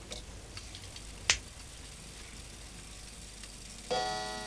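A few light ticks and one sharp click about a second in, then, near the end, a clock's coiled wire gong struck once by its hammer, ringing on with many steady tones that slowly fade.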